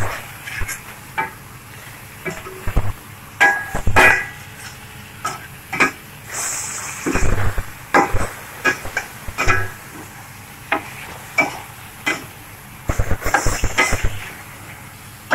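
Slotted metal spatula scraping and clinking against a stainless steel pan while stirring chicken pieces, in irregular strokes, with two short hisses of sizzling.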